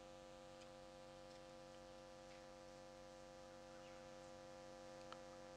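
Near silence: a faint steady hum, with a single faint click about five seconds in.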